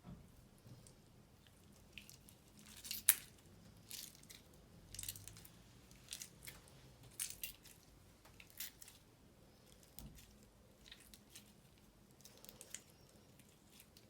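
Orange glue slime being squeezed and kneaded by hand: irregular sticky, wet clicks and squelches, the sharpest about three seconds in.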